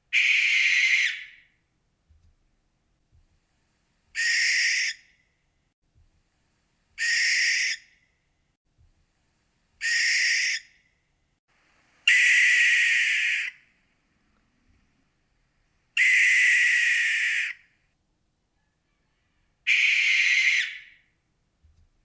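Barn owl screeching: seven harsh, raspy screeches, each about one to one and a half seconds long, spaced three to four seconds apart.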